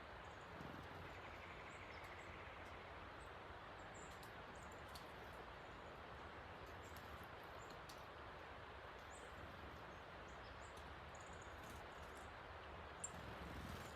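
A creek swollen by heavy rain rushing steadily, with small birds giving short high chirps now and then and a single sharp click near the end.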